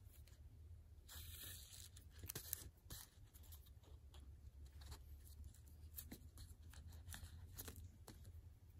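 Faint rustling and scattered soft ticks of thread being drawn through the sewing holes in paper pages and a book board while hand-sewing a Coptic binding, over a low steady hum.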